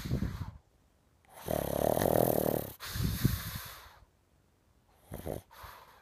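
Pug snoring in its sleep: a short snort at the start, one long snore about a second and a half in that runs into a lower out-breath, then two short snuffles near the end.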